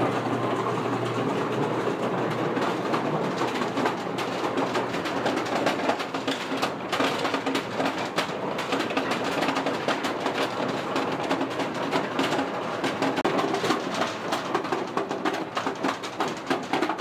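Driving-range ball-handling machinery running: many golf balls clatter and rattle through a ball washer and down metal chutes and rails in a continuous dense clatter. A low motor hum sits under it for the first couple of seconds.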